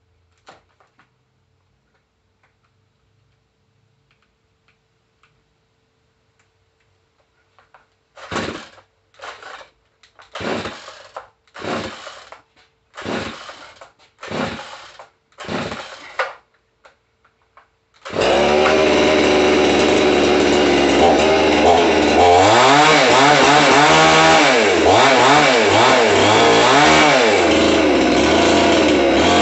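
Chinese-made two-stroke chainsaw being pull-started: a quick series of about eight pull-cord strokes, then the engine catches about 18 seconds in and runs loud, revving up and down.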